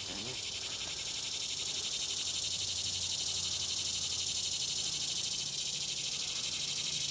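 Steady high-pitched insect chorus with a fast, even pulsing, as from summer cicadas or katydids, over a faint low hum.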